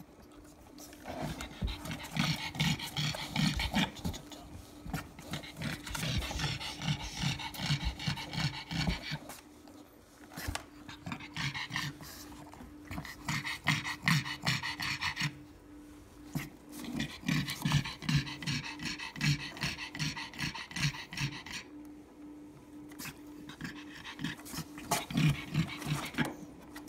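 A black pug bitch in labour panting hard and fast, in long runs of quick breaths broken by short pauses. Heavy panting like this is typical of a dog whelping.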